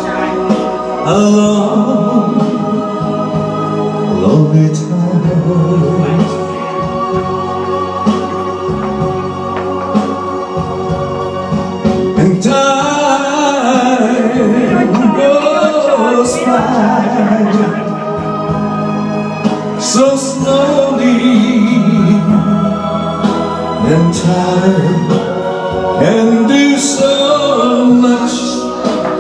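A man singing live into a handheld microphone over amplified accompaniment with long held chords.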